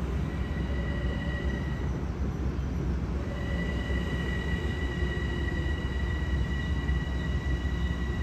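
Passenger train running past: a steady low rumble with a high, steady squeal over it that drops out for about a second partway through.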